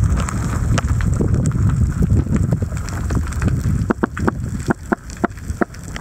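Underwater sound in a rocky sea cave: a low rumble of moving water with a steady fine crackle, and a quick run of about eight sharp clicks in the last two seconds as the rumble eases.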